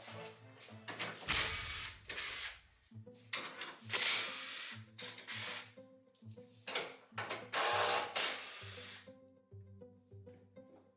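Background music with a steady bass line, overlaid by several loud hissing bursts of half a second to two seconds each from shop work.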